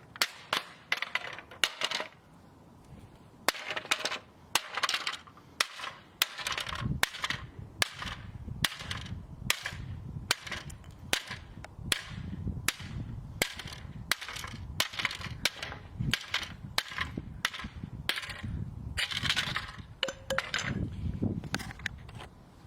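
A plastic toy being smashed: a steady run of sharp, hard blows, about one or two a second, with plastic pieces cracking and rattling between them.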